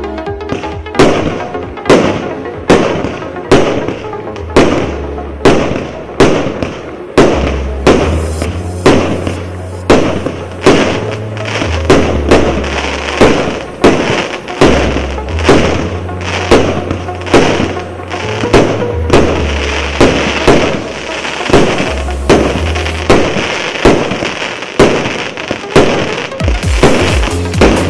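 A 154-shot consumer fireworks cake battery (0.8- and 1-inch calibre tubes) firing its shots one after another, a little over one bang a second, each bang fading quickly. Near the end the shots come in a rapid string. Electronic music plays underneath.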